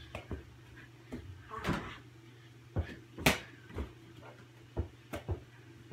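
A small ball bouncing and knocking against a mini basketball hoop: a string of separate thuds and knocks, the sharpest a little over three seconds in.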